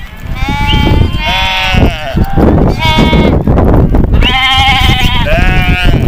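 A flock of sheep bleating: about five loud, quavering calls one after another, some overlapping.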